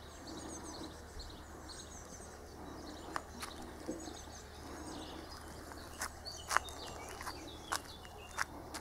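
Outdoor background with small birds chirping and a steady low hum. Sharp ticks or taps come a few at a time about three seconds in, then about twice a second through the last few seconds.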